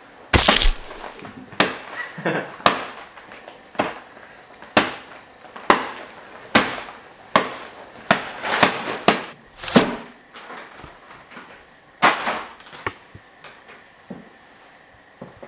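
A series of sharp knocks and thumps at irregular intervals, roughly one a second, with several in quick succession about eight to ten seconds in, then only a few more.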